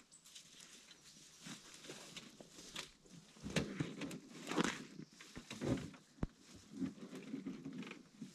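Footsteps crunching and rustling along a forest portage trail, irregular and sparse at first, then denser and louder from about halfway through.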